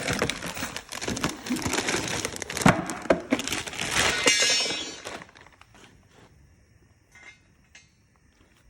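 Cardboard box and packaging being torn open and rustled, with crackles and clinks, as a replacement coil spring is unpacked. It stops about five seconds in, leaving only a few faint ticks.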